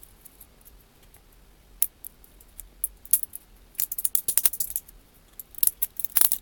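Support material being twisted and pulled off a polycarbonate 3D print: a few scattered sharp clicks, then bursts of rapid crackling and snapping about four and six seconds in.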